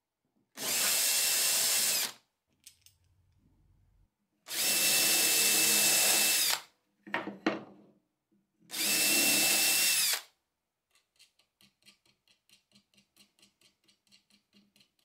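Cordless drill boring out holes in plywood in three short runs of about two seconds each, its motor whine dropping in pitch as it stops each time. Near the end, faint quick ticking as small nuts are threaded onto bolts by hand.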